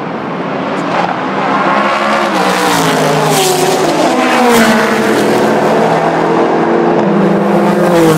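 Race cars passing at speed on a street circuit. A sports-prototype's engine rises and then drops sharply in pitch as it goes by about three to four seconds in, and more cars' engines follow close behind.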